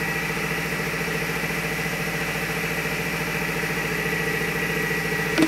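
Hot-melt adhesive paper tube labeling machine running: a steady mechanical hum with a fast, even pulsing and a thin, steady high whine.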